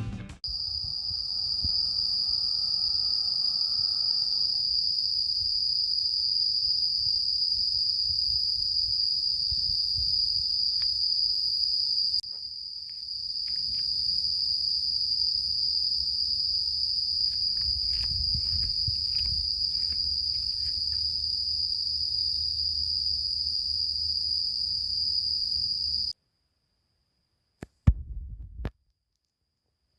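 Crickets and other autumn insects trilling in a steady chorus at one high pitch, over a low rumble. The sound breaks briefly about twelve seconds in, then cuts off a few seconds before the end, followed by two short clicks.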